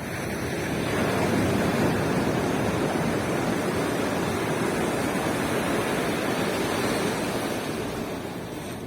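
Ocean surf: a wave breaking and washing up the beach, a rush that swells within about a second, holds for several seconds and then dies away near the end.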